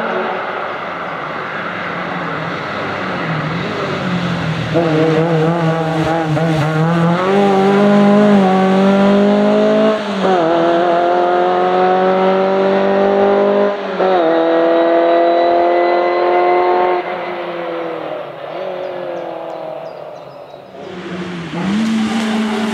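Škoda 130 rally car's rear-mounted four-cylinder engine at full throttle, rising in pitch through the gears with two brief lifts for upshifts about ten and fourteen seconds in, then fading as the car drives away. Near the end the engine sound comes up loud again.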